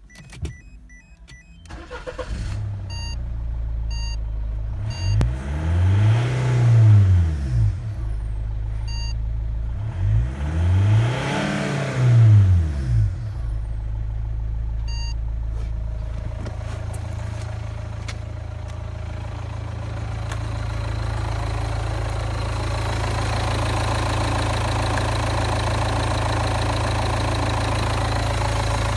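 Citroen C5 2.2 HDi (4HX, DW12TED4) four-cylinder common-rail turbodiesel starting up, with a few short dashboard beeps. It is then revved twice, the pitch rising and falling each time, and settles to a steady idle.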